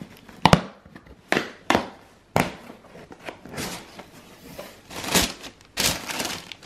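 Cardboard parcel being opened by hand: a few sharp snaps and scrapes of the cardboard flaps, then tissue paper rustling and crinkling later on.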